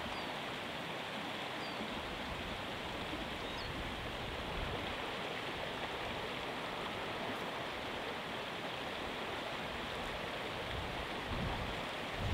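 Steady rushing of a mountain stream running over rocks.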